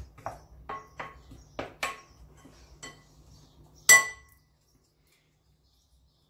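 A utensil clinking and scraping against a glass mixing bowl while dry flour and cornstarch are stirred, a light clink with a short ring every half second or so. About four seconds in comes one much louder ringing clink, after which the sound cuts out.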